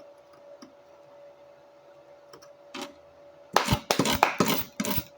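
Welding arc crackling in a quick series of short, loud bursts starting about three and a half seconds in, over a faint steady hum.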